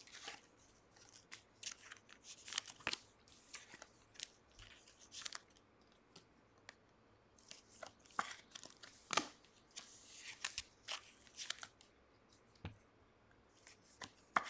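Trading cards and pack wrappers being handled: faint, irregular crinkles, rustles and small clicks.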